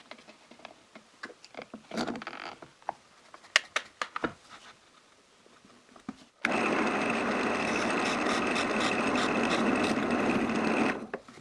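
Light handling clicks as a short pine rod is set up, then about six seconds in a drill press with a 6 mm bit starts and drills steadily into the rod's end grain for about four and a half seconds, stopping near the end.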